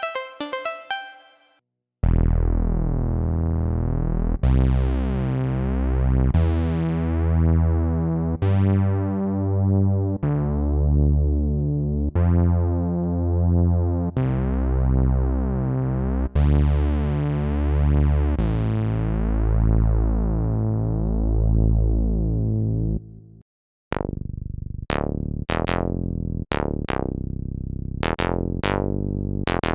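Roland PROMARS synthesizer presets playing: long held low chords that change about every two seconds, each starting bright and then closing down as the filter sweeps shut. After a brief gap near the end, a different patch plays a run of short plucked notes.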